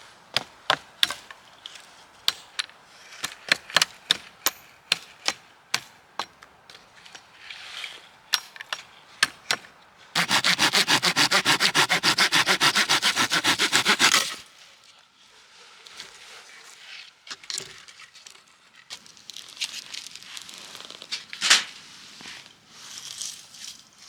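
Firewood being chopped with a hatchet: sharp wooden knocks and cracks, about two a second, for much of the first half. Partway through comes about four seconds of a loud, fast, even rasping, followed by a few scattered knocks and one loud crack near the end.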